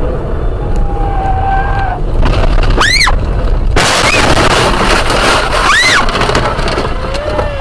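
Car crash heard from inside the car: tyre and road noise, then a high rising-and-falling squeal about three seconds in, followed by a loud two-second crash of the car leaving the road and its windscreen shattering, with another brief squeal as it ends.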